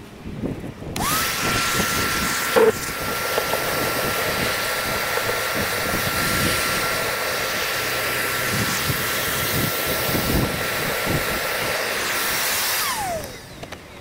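Wet/dry shop vacuum switched on about a second in, its motor whine rising to a steady pitch over rushing air as the hose nozzle sucks leaves and debris out of a foundry furnace's ceramic fibre blanket lining. A sharp knock comes a couple of seconds in, and near the end the vac is switched off, its whine falling as the motor spins down.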